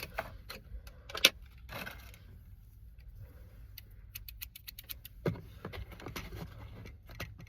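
Small packaging being opened and handled by hand: a string of light plastic clicks and rattles, with one sharper click about a second in and a dull knock past the middle.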